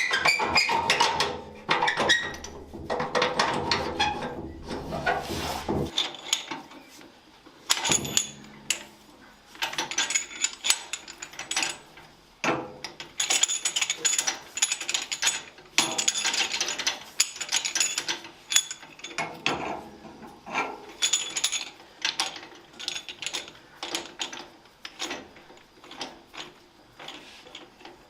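A small mechanism clicking and clattering irregularly, with many sharp knocks, busiest in the first few seconds.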